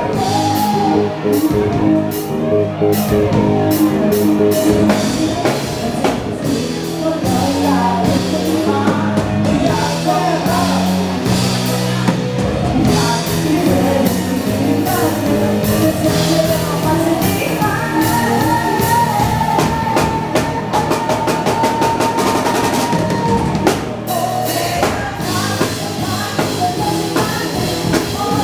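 Live band playing an upbeat dance-pop song: a singer over drum kit, bass and guitar.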